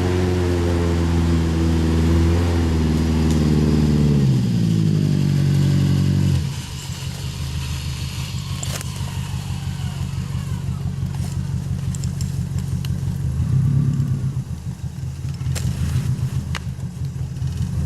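Off-road 4x4's engine running hard at high revs, its pitch sinking, then dropping abruptly about six seconds in to a lower, rapidly pulsing low-rev note. A few sharp knocks come later.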